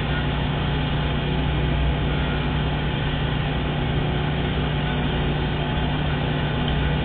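Light aircraft's engine and propeller droning steadily in flight, heard from inside the cockpit.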